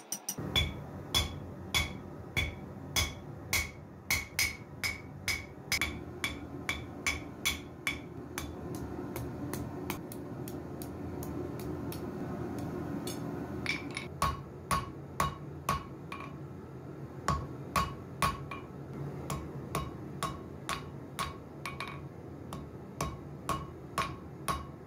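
Hand hammer striking red-hot steel on an anvil, about two blows a second, each with a bright metallic ring. The blows thin out for several seconds midway under a steady low rushing noise, then resume with a lower-pitched ring.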